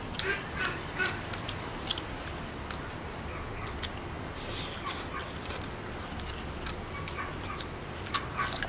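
Two people eating from porcelain bowls: chopsticks clicking against the bowls, with chewing and slurping. Short animal calls sound in the background.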